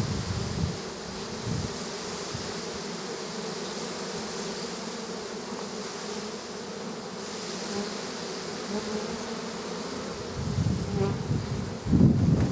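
Honey bees buzzing steadily in a dense swarm of flight over an open, crowded hive. Wind buffets the microphone with a low rumble at the start and again near the end.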